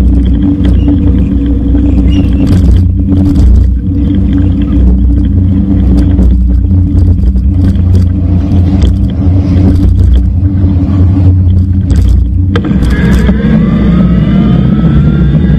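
Wind buffeting and road rumble heard on a bike-mounted action camera while an e-bike rides along, with scattered knocks from bumps. Late on, a whine of several tones climbs steadily in pitch, like an electric motor speeding up.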